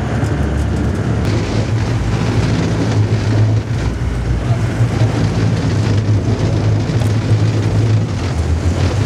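Sportfishing boat's engine running steadily under way, a constant low drone with wind and water noise over it.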